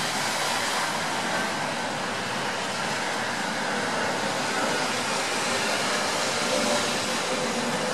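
Steady rain falling, an even hiss with no single drops or other events standing out.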